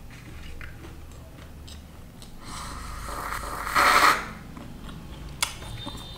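A person slurping liquid from a small glass, a long noisy slurp that swells to its loudest about four seconds in and stops abruptly, followed by a single short click near the end.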